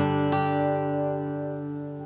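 Tokai Cat's Eyes TCE-30 solid spruce-top acoustic guitar: a chord ringing out and slowly fading, with one more note picked about a third of a second in.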